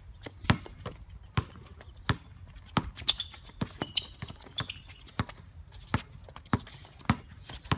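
Basketball being dribbled on an outdoor hard court: a steady run of sharp bounces, about three every two seconds, with a few short high sneaker squeaks near the middle.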